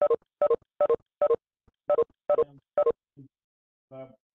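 A run of short electronic beeps from a video-conference app, about two to three a second, with a pause about three seconds in: the notification tone of participants leaving the call.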